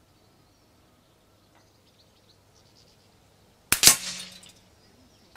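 A silenced .177 Daystate FAC PCP air rifle fires one shot about three and a half seconds in: a sharp crack, a second crack a moment later, and a short fading tail.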